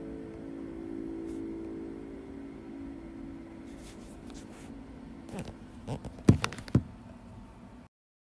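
The final sustained chord of a piece of music ringing out and slowly fading, followed by a few sharp knocks near the end before the sound cuts off.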